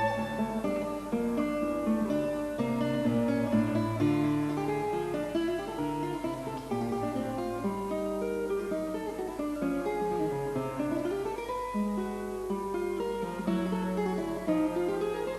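Guitar music: a run of plucked notes, a melody over lower bass notes, playing throughout.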